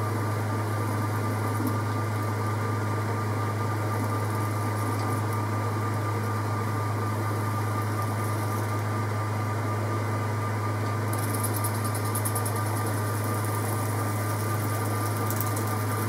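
Metal lathe running steadily with a low hum, its four-jaw chuck spinning a nylon split bush while the tool faces the end of it.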